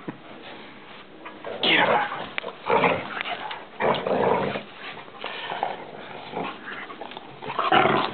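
Two big dogs, a pit bull–mastiff mix and a shepherd–lab mix, play-fighting, growling in about four loud, rough bouts with quieter stretches of scuffling between.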